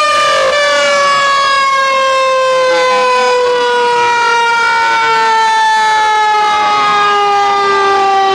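Several fire truck sirens sounding at once: one long note slowly falling in pitch, with other sirens wailing up and down over it.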